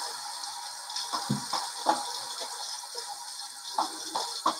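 Running tap water hissing steadily, with light clicks and rattles of shaving gear being handled in between shaving passes.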